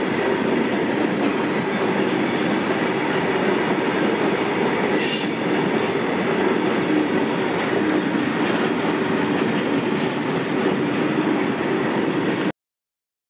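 BCNA covered freight wagons rolling past on the rails, a steady rumble of wheels on track. About five seconds in comes a brief high-pitched wheel squeal. The sound cuts off suddenly near the end.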